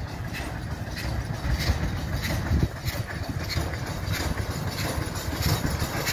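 Polish steam locomotive approaching, its exhaust chuffing in an even beat a little over twice a second over a low rumble that grows slowly louder as it nears.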